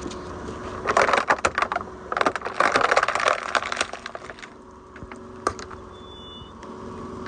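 Car tyre crushing Coca-Cola containers: dense crackling and crunching in two bursts, about a second in and again from two to nearly four seconds in, then a single sharp click.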